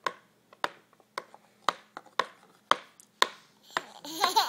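A baby tapping a metal spoon: sharp clicks with a short ring, about two a second. Near the end the baby breaks into a giggle.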